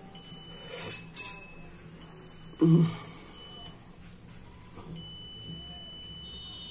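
Digital multimeter's buzzer sounding two long, steady high beeps, each about two seconds. Handling knocks come about a second in, with a louder thump near the middle.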